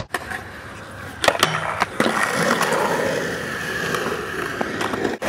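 Skateboard on concrete: a few sharp clacks of the board about a second in, then the steady rumble of urethane wheels rolling over the skatepark's concrete.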